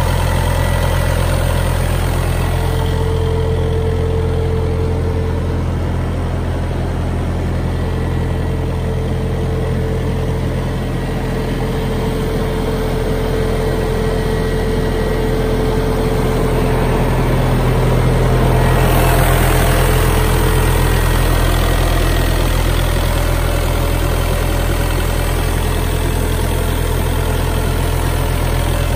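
Small diesel engine of an Ultima XT trailer refrigeration unit running steadily with a constant low hum, getting slightly louder about two-thirds of the way through.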